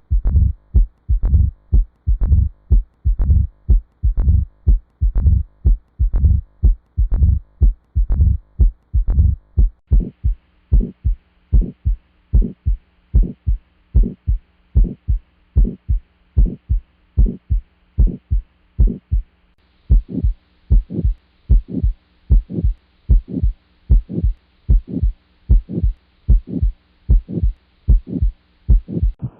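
Recorded human heart sounds: a steady, regular series of short low lub-dub thumps, roughly two heart sounds a second, with quiet gaps between beats. A faint background hiss changes twice, as one recording gives way to the next.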